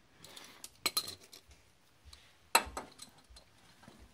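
A metal hand tool clinking and knocking against steel while working on bolts under a Jeep: a quick run of sharp clinks about a second in, and one louder clink with a brief ring about two and a half seconds in.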